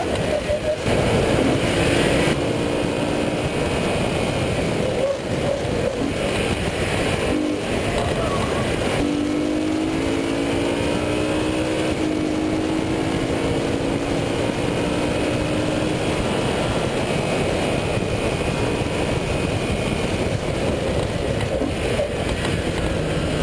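BMW M3 engine heard from inside the cabin under hard driving on a race track, mixed with wind and tyre noise. The engine note climbs slowly and drops at a gear change about halfway through.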